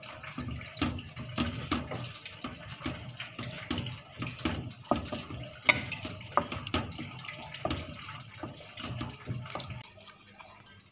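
A spatula stirring wet tamarind paste with ground spices in a non-stick pan: irregular wet scrapes and slops, about two or three a second, dying away near the end.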